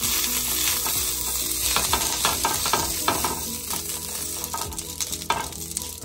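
Aluminium foil crinkling and crackling as hands press and smooth it flat into a frying pan. The crackle is densest in the middle and flares once more near the end.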